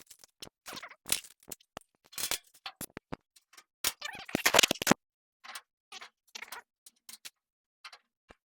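Irregular clicks, knocks and rattles of hard parts being handled and fitted into place by hand, busiest and loudest about four to five seconds in, then sparser.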